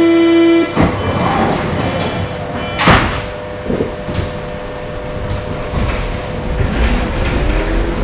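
Berlin U-Bahn train door-closing warning beep ending just under a second in, then the sliding doors banging shut about three seconds in. After that the car rumbles, and near the end a faint rising whine begins as the train starts to pull away.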